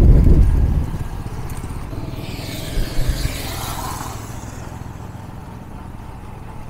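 Motorcycle riding noise: a loud low rumble in the first second that eases into a steadier, quieter rumble.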